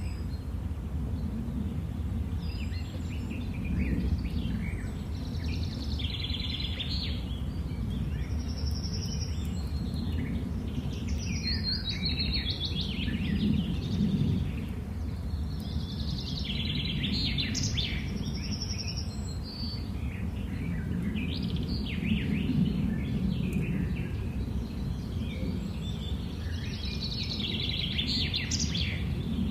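Songbirds calling and singing in repeated bursts of chirps and trills, over a steady low background rumble.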